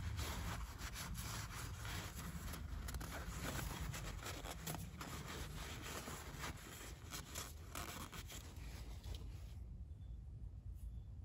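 Blue shop towel rubbing and wiping inside the oil filter mounting boss on a motorcycle engine's crankcase, soaking up oil, a steady rustling scrub that stops near the end.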